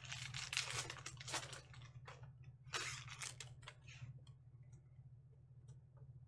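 A foil-wrapped trading card pack crinkling as it is torn open, in two noisy bursts, followed by light clicks and slides of the glossy cards being handled and sorted.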